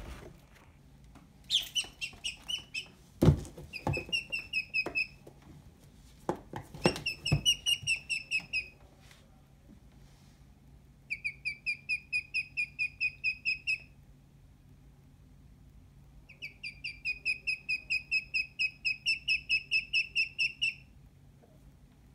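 A duckling peeping: bouts of loud, high, rapidly repeated peeps, about five a second, broken by short quiet gaps. A couple of sharp knocks come in the first seven seconds.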